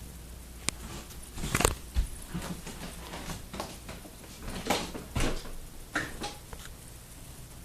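Ceiling fan running in reverse, a steady low hum, with irregular knocks and rustles over it, the loudest about a second and a half in and again about five seconds in.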